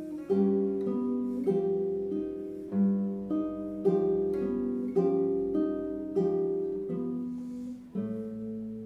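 Nylon-string classical guitar played solo: a run of plucked chords and single notes, each ringing and dying away, settling about eight seconds in on a low chord that is left to ring and fade.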